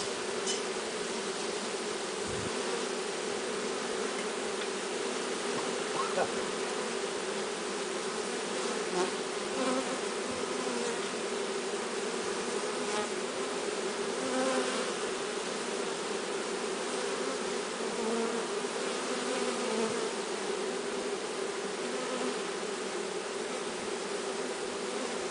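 A honeybee swarm buzzing: a steady, dense hum of many bees together.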